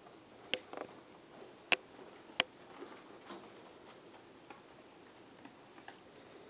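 Sharp clicks and taps in a wire pet-rodent cage: a handful in the first three and a half seconds, the two loudest about two-thirds of a second apart, then a few faint ticks.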